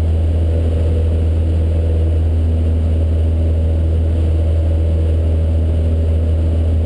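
Cessna 152's four-cylinder engine and propeller running steadily, heard inside the cabin as a deep, even drone.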